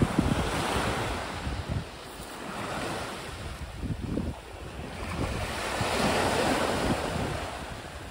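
Small sea waves breaking and washing up a pebbly beach in two swells of surf, one at the start and another from about five seconds in. Wind buffets the microphone with low gusty rumbles throughout.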